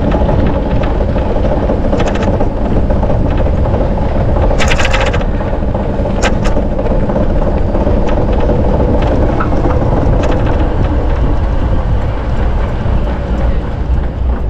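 Steady loud rushing of a bicycle ride, wind on the microphone and rolling tyres, with scattered clicks and rattles and a short burst of rapid ticking about five seconds in.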